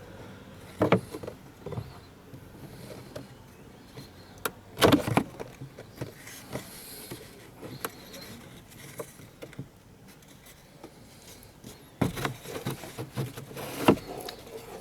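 Scattered clicks, knocks and short rustles of hands handling the cabin air filter and its housing behind the glovebox, with a louder cluster about five seconds in and another near the end.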